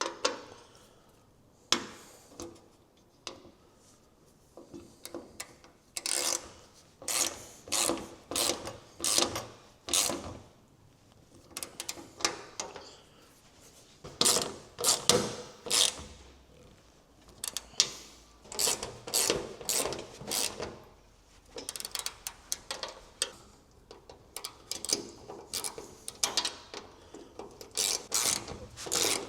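Ratchet wrench clicking in runs of quick strokes with short pauses between, as nuts and bolts are tightened on the bonnet clamps.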